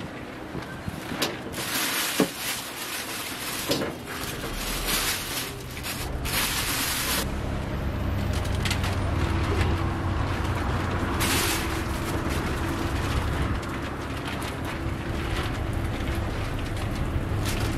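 Egg-and-cabbage toast patties sizzling in oil on a flat street-stall griddle, with metal tongs clicking on the plate a few times in the first four seconds. Short bursts of louder hiss or rustling come and go over a steady low hum.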